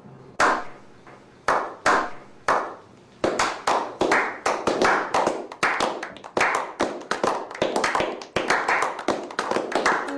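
Hand clapping in a slow clap: single claps about a second apart that quicken after about three seconds into faster, overlapping clapping.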